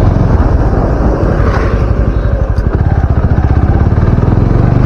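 Suzuki Gixxer SF 250's single-cylinder engine running through a slip-on aftermarket exhaust while the motorcycle is ridden, a steady low throb of firing pulses.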